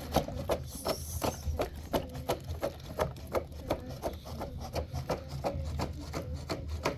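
Steady run of short rubbing strokes, about three a second, over a low hum.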